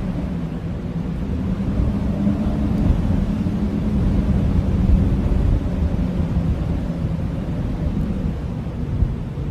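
Blizzard wind blowing steadily, a deep low rush with a faint held howling tone.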